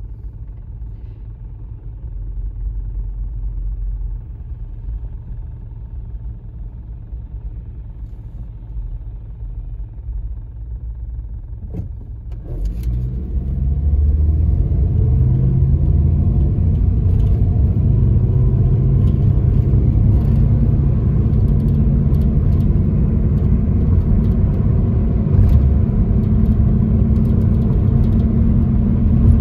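Car cabin noise: the engine idles low while the car waits. A click comes about twelve seconds in, then the car pulls away, and engine and road noise grow much louder and hold steady.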